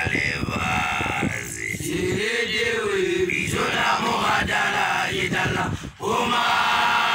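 Group of young male voices chanting loudly with long held notes, the voices of makoloane, newly graduated Basotho initiates. There is a brief break about six seconds in.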